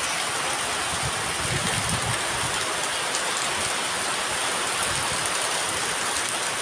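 Steady rain pouring down: an even hiss of drops falling on the ground and other surfaces.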